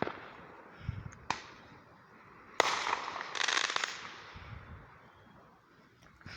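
Consumer fireworks going off: a few sharp bangs and low booms, the loudest bang about two and a half seconds in, followed by a burst of crackling.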